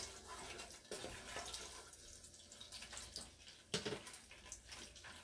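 Whole cumin seeds sizzling in hot oil, a light irregular crackle of small pops as the seeds fry until fragrant. Two louder knocks stand out, one right at the start and one nearly four seconds in.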